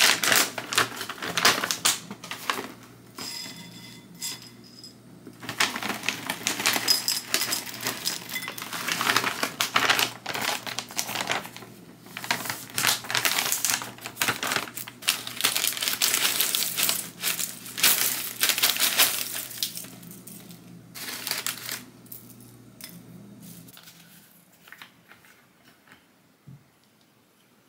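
Dry cereal pouring from plastic bags into a ceramic bowl: a dense rattle of many small hard pieces striking the bowl and each other, with the bag crinkling. It comes in several long pours with short pauses and fades to a few faint ticks near the end.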